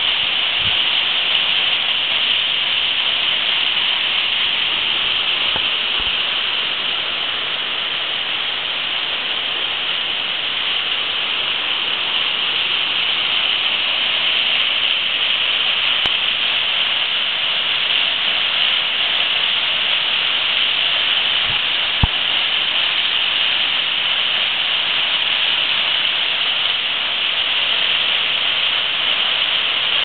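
A tall, narrow waterfall pouring off a rock ledge and splashing into a pool below: a steady hiss of falling water.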